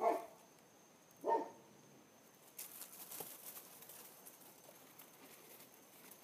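Two Labrador retrievers at play: two short voice-like sounds in the first second and a half, then paws scuffling and pattering over dry leaves on the ground.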